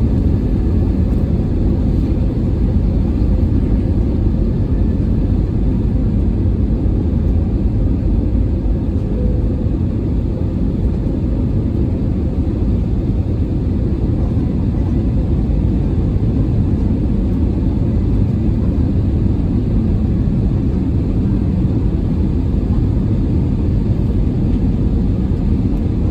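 Steady low rumble inside an Airbus A320's passenger cabin in flight: engine and airflow noise heard from a window seat, unchanging throughout.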